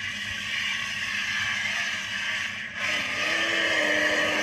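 High-speed RC boat's motor running with water churning around the hull; about three seconds in it gets louder and a steady whine sets in.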